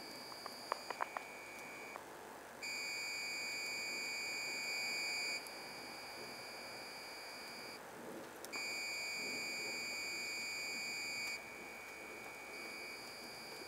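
A steady high-pitched electronic tone, like a warning beeper, with overtones above it; twice it grows louder for about three seconds, with short breaks between. A few sharp clicks about a second in.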